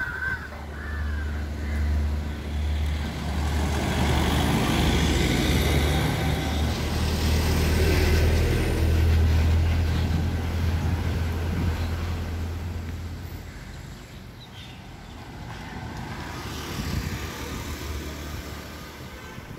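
A large vehicle's engine running close by with a steady low hum, while road noise swells and then fades. The hum stops about twelve seconds in, leaving quieter outdoor traffic noise.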